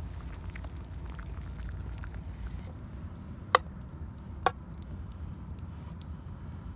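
Two sharp metallic clinks about a second apart, like a utensil striking the aluminium mess tin, over a low steady rumble and faint crackles.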